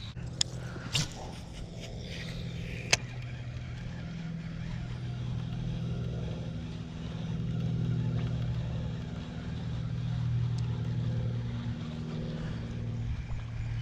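A few sharp clicks in the first three seconds, then a steady engine hum from a motor vehicle that grows louder and softer again over several seconds.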